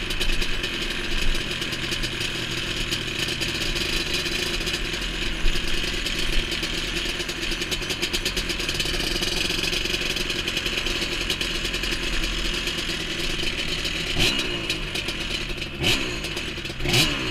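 Yamaha Banshee 350's two-stroke parallel-twin engine running while the quad is ridden, heard from on board; near the end it revs up sharply in a few quick bursts, rising in pitch.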